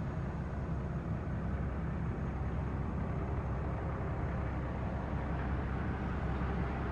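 Heavy truck running steadily, a constant low engine rumble mixed with road noise.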